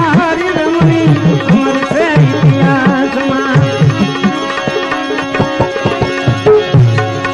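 Instrumental interlude of a Gujarati bhajan: tabla played in quick strokes, its bass drum strokes bending in pitch, over sustained melodic accompaniment.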